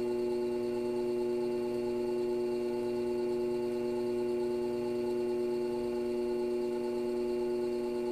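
Electric pottery wheel running at a steady speed, a steady electrical motor hum, while wet clay is pulled up between the hands.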